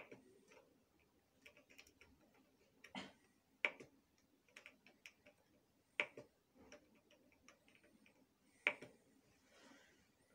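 Light clicking of the Hamilton C3 ventilator's press-and-turn control knob being turned and pressed: a run of faint ticks with several sharper clicks a few seconds apart.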